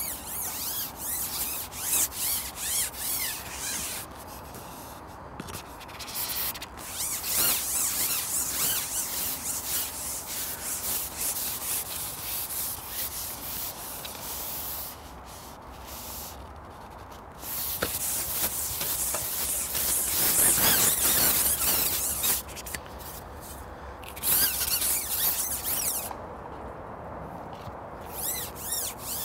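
A carbon fishing pole being shipped out and back by hand, its sections sliding and rubbing with a scraping hiss that comes and goes in stretches.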